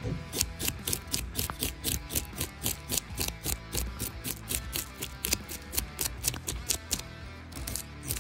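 A bass being scaled: a metal spoon scraped quickly and repeatedly along the fish's side, about four to five rasping strokes a second, flicking the scales off. Background music plays underneath.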